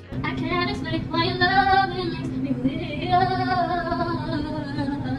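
A woman singing, holding two long, wavering notes over a steady low hum.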